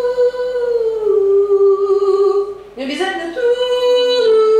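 A woman singing slowly: long held notes at a steady pitch, stepping down to a lower note about a second in, then a short break and a new held phrase starting near the three-second mark.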